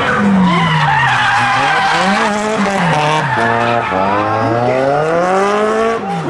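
Drift car's engine revving as it slides sideways through a corner, its note falling and rising several times, then climbing steadily before dropping off near the end, with the tyres skidding and smoking under wheelspin.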